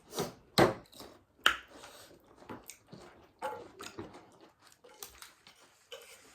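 People eating close to the microphone: chewing and mouth noises, with two loud sharp clicks about half a second and a second and a half in and softer ones scattered after.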